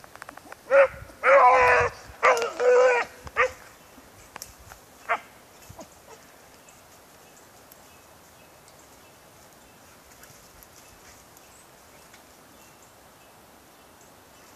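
A dog baying in a quick run of loud, drawn-out calls in the first few seconds: one short call, then a long one and a few more close together. A single fainter call follows, then only faint outdoor background.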